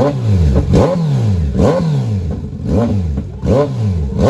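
Kawasaki Z900 inline-four with an SC Project aftermarket exhaust being revved in place: about five quick throttle blips, each engine note shooting up and falling back toward idle.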